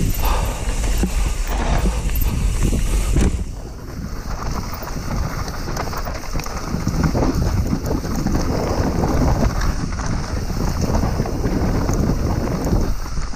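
Mountain bike descending a dirt singletrack at speed: wind rumbling on the camera microphone, heaviest for the first few seconds, with the tyres and frame rattling and knocking over the bumpy trail.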